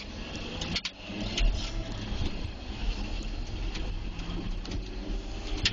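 Cat 140H motor grader's diesel engine running steadily as its V-plow pushes snow and water, with an even hiss over the low rumble. Two sharp knocks, one about a second in and one near the end.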